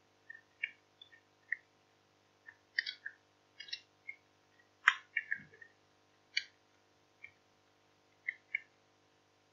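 Computer keyboard keys clicking as code is typed: single, irregular keystrokes with short pauses between them.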